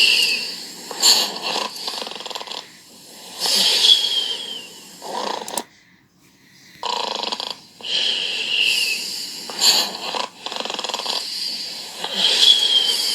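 Cartoon snoring from the Gulli TV channel's overnight sleeping-mascot screen. Slow in-and-out snores come about every four seconds, each with a high whistling tone, and there is a short pause near the middle.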